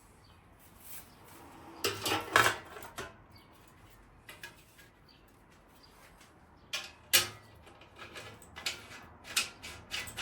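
Metal parts and tools clinking and clattering on a workbench as they are handled. There is a cluster of knocks about two seconds in, a sharp clank about seven seconds in, and a run of lighter clinks near the end.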